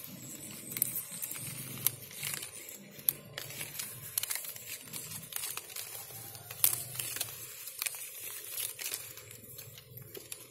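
Water apple tree leaves rustling and crinkling as a hand pushes through the branches and handles the bud clusters, with irregular sharp crackles and clicks throughout.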